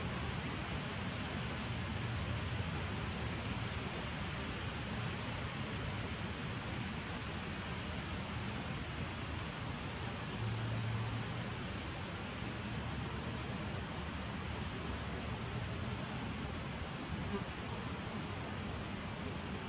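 Honeybees buzzing at the entrance of a nucleus colony hive: a steady low hum that swells briefly about halfway through, over a steady high-pitched hiss.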